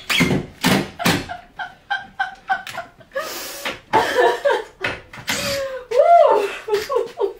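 A woman laughing hard: a run of quick breathy bursts at first, then longer laughing sounds that slide up and down in pitch.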